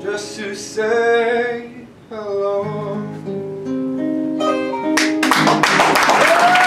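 The close of a live fado song: a voice sings the last phrases over Portuguese guitar and acoustic guitar, ending on long held notes. Applause breaks out about five seconds in.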